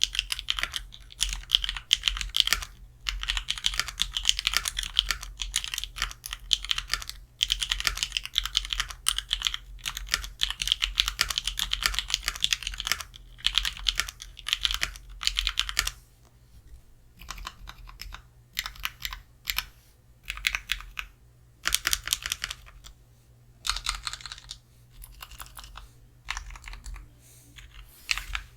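Typing on a mechanical keyboard with lubed Kailh Pro Purple tactile switches in a Sorbothane-lined case, with GMK keycaps: a fast run of key clicks. About halfway through, the typing gives way to sparser, separate presses of the keys that have clipped, band-aid-modded and greased stabilizers.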